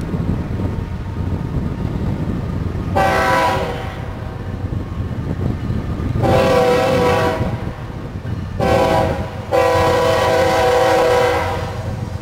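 Diesel freight locomotive's multi-tone air horn sounding the grade-crossing signal: two long blasts, a short one, then a final longer one. The low rumble of the approaching locomotive's engines runs underneath.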